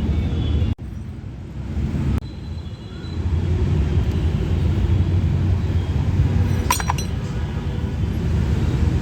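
A steady low rumble with a short cluster of metallic clinks about seven seconds in: hand tools on metal while a flywheel puller is tightened to draw the magneto off a scooter engine.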